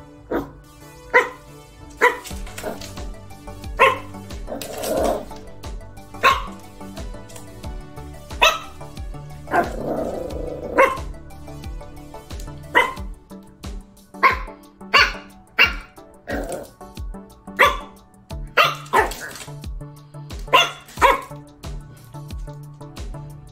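Miniature schnauzer puppy barking at his own reflection in a mirror: about twenty short barks at irregular intervals, over steady background music.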